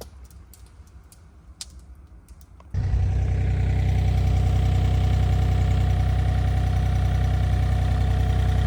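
A few faint clicks, then about three seconds in the engine of a hydraulic work machine cuts in abruptly and runs steadily at idle.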